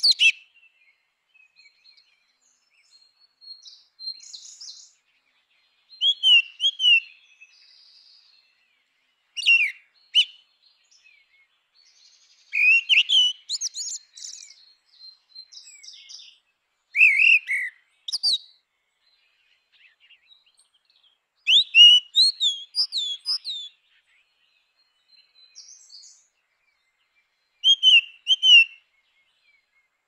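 Grey-winged blackbird singing: about seven short song phrases of a second or two each, separated by pauses of a few seconds.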